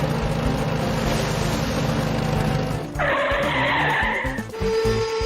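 Vehicle engine sound running steadily, then a tire-skid screech about three seconds in that lasts about a second and a half. A single steady high note comes in near the end.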